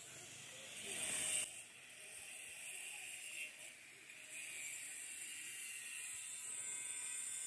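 Faint, steady noise of distant construction work, with a brief louder noise about a second in.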